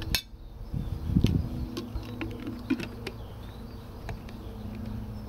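A flying insect buzzing, a steady drone that fades and returns, with a few light clicks and a dull knock as a plastic water bottle and a small metal pot are handled.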